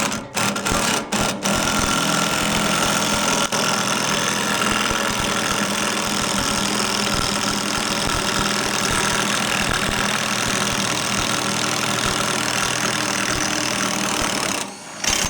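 Cordless power drill running under load, driving the forcing screw of a Posi Lock gear puller to pull a part off a blower motor shaft. It starts with a few short trigger pulses, then runs steadily for about thirteen seconds and stops near the end, with one brief final burst.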